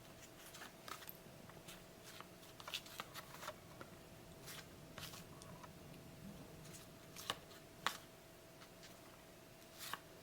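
Paper trading cards being handled and flipped through one after another: faint soft slides and light clicks of card against card, with a couple of sharper clicks about three-quarters of the way through. A faint steady tone hums underneath.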